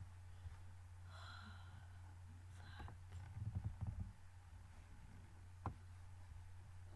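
Quiet room tone picked up by a laptop's built-in microphone: a low steady hum, with a faint breath about a second in, a few soft low bumps around the middle and a single sharp click near the end.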